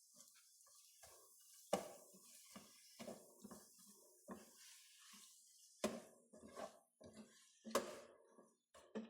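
Kitchen utensils knocking and clinking against dishes in an irregular run of short taps, with three louder knocks about two, six and eight seconds in.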